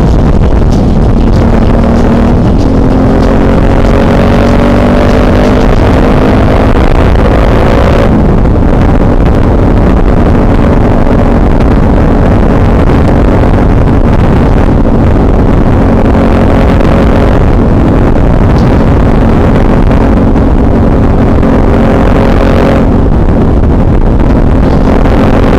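Suzuki DL650 V-Strom's V-twin engine running under way, with heavy wind rush on the microphone. The engine note climbs slowly over the first several seconds, changes about eight seconds in, then holds steady at cruising speed.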